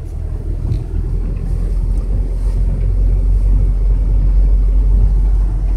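Low, steady rumble of a vehicle's engine and tyres on a wet gravel road, heard from inside the cabin, growing louder through the first few seconds.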